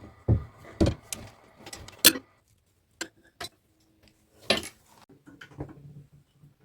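Irregular clicks and knocks of bidet sprayer hose fittings being handled and pushed together, with sharper snaps about two seconds in and again near the middle.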